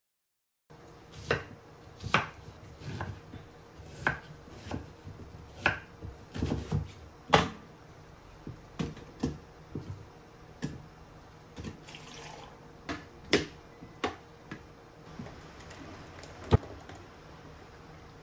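Scattered sharp knocks and taps of pear chunks being handled on a wooden cutting board and dropped into a plastic blender jug, about one or two a second, over a faint steady hum.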